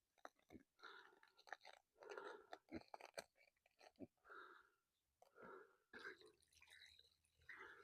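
Faint sounds of pigs eating feed: scattered soft crunches and chewing.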